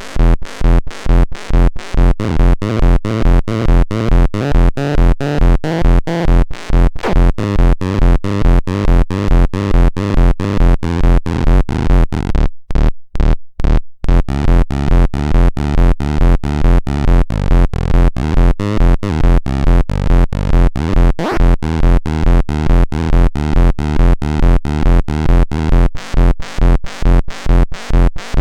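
Techno Station TS1 playing an electronic dance pattern: a fast, even beat with a heavy low pulse under synthesizer and keyboard tones. The beat drops out briefly near the middle, then comes back.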